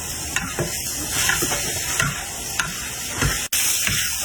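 Fenba (rice-flour cake) being stir-fried in a wok: oil sizzles steadily while a spatula stirs and scrapes in repeated strokes about every half second. The sound cuts out for an instant a little after three seconds.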